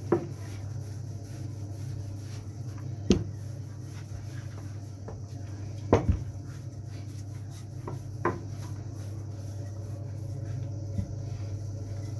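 Wooden rolling pin rolling out cracker dough on a floured silicone mat, with about five sharp knocks spaced a few seconds apart, over a steady low hum.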